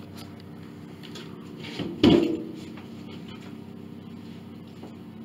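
A single loud knock about two seconds in, with a short ringing after it, over a steady low hum.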